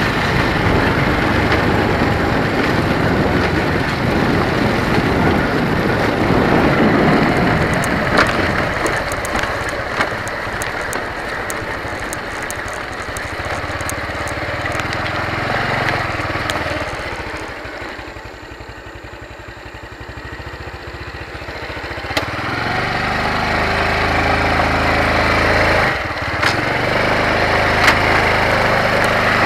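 Motorcycle engine running while riding along a rough gravel road, with road noise. About two-thirds in it eases off and goes quieter for a few seconds, then picks up again. Small ticks and a knock come from the bumpy stony surface.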